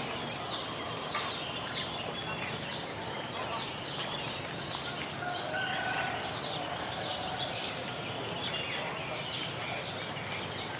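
Village birdsong after rain: a bird repeats a short high call that slides downward, about once a second, with other softer bird notes around it. A steady thin high whine runs underneath.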